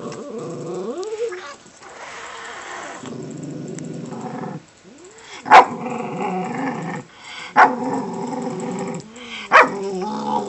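Miniature pinscher growling, broken in the second half by three sharp, loud barks about two seconds apart.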